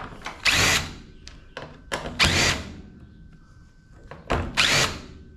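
Three short bursts of clattering and scraping from metal parts being handled and worked loose while a washing machine is stripped for scrap.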